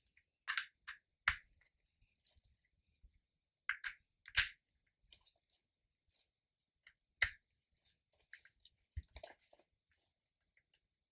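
Intermittent handling noises: short rustles and clicks with a few sharper knocks, scattered with pauses between them, as parts and materials are handled.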